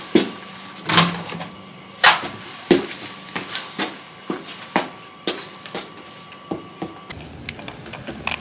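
Irregular series of sharp knocks and clatters, roughly two a second.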